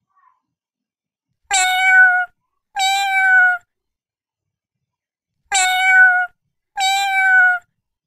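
Domestic cat meowing: four meows of nearly a second each, in two pairs about four seconds apart, each held at a steady pitch and dropping slightly at its end.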